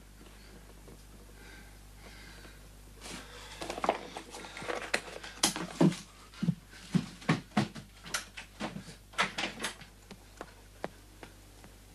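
An irregular run of knocks and thumps on wood, starting about three seconds in, coming thick and fast for several seconds, then thinning out near the end.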